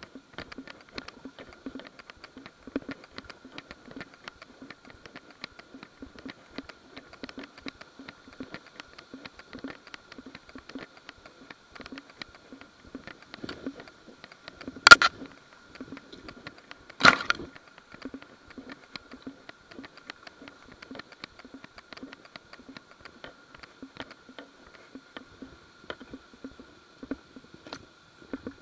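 Rhythmic rustling and crunching of steady movement through dry leaf litter and undergrowth, over a faint steady high whine. About halfway through come two loud sharp cracks roughly two seconds apart.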